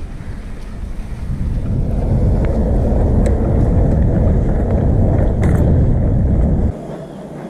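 Wind buffeting the microphone of a camera on a moving bicycle: a low rumbling rush that builds over the first couple of seconds and cuts off suddenly near the end.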